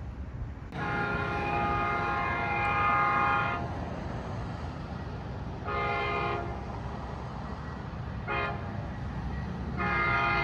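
Locomotive air horn of an approaching train on the coastal line, a multi-note chord sounding a long blast, two short ones, then another long one beginning near the end, the pattern typical of a grade-crossing warning. A steady low rumble runs underneath.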